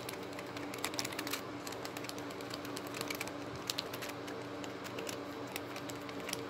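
Light clicks and taps of hands handling a small toy monster truck close to the microphone, fingering its wheels and axle, over a faint steady hum.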